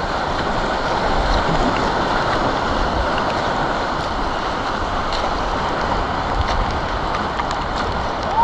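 Steady rush of sea surf around a kayak paddling through breaking waves, mixed with wind noise on the microphone.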